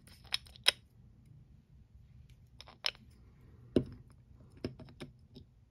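Light, irregular clicks and taps from hands handling nail polish supplies on a paper-towel-covered table, about seven in all, the sharpest a little under a second in.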